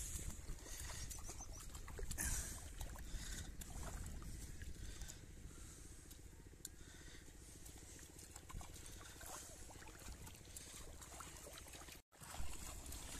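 A small child's bare feet splashing and wading through shallow river water, with louder splashes near the start and about two seconds in, over a low steady rumble.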